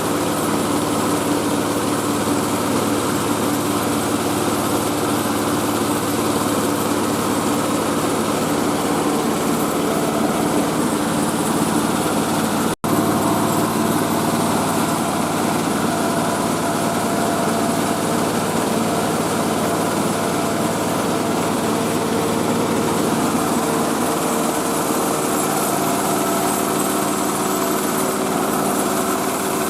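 Mobile rice-milling machine running steadily: its engine and milling machinery hold a constant pitch. A split-second break in the sound about 13 seconds in.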